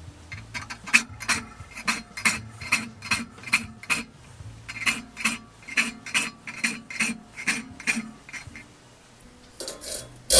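Steel file rasping across the teeth of a crosscut frame saw held in a saw vise: quick, even push strokes, about three a second, with a short break about four seconds in, stopping a little before the end.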